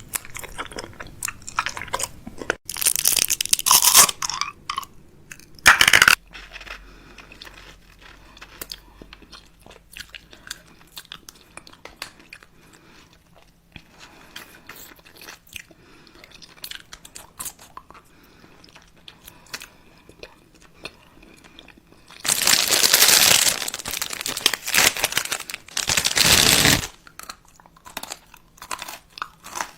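A person crunching and chewing crisp food, with many small crackling clicks and a few louder stretches of crunching. The longest loud stretch comes about two-thirds of the way through.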